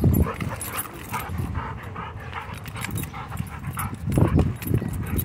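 German Shorthaired Pointer panting quickly and steadily, about three breaths a second, while tugging on a rope toy, with a louder low rumble about four seconds in.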